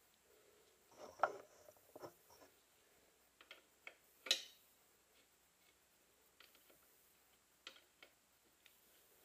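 Faint, irregular clicks and taps of hand tools working a motorcycle's rear chain adjuster. The loudest come about a second in and about four seconds in.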